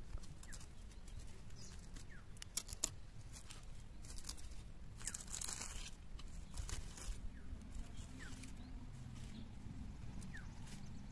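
Scissors snipping the thread tied round a fish parcel wrapped in pumpkin leaves, then the crisp, charred leaves being pulled open with crinkling and tearing. Sharp snips cluster a few seconds in, with a longer crackle of leaves in the middle.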